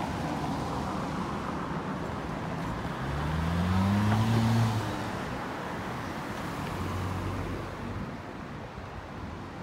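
Road traffic at a city intersection: cars passing, one engine note rising as a car accelerates away three to five seconds in, the loudest moment, with a quieter engine hum passing later.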